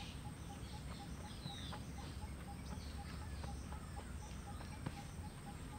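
Faint birdsong: scattered short chirps over a small ticking note repeated evenly about four times a second, with a low steady rumble underneath.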